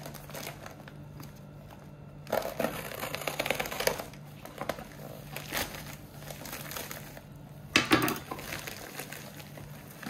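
Plastic mailer bag crinkling and tearing as it is pierced with a pen and ripped open by hand, in irregular rustling bursts, the loudest a sudden rip or rustle about eight seconds in.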